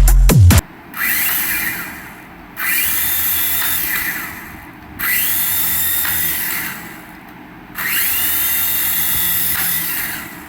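A toy's small electric motor whirring in four bursts, its whine rising as it spins up and then holding steady for a second or two before dropping off.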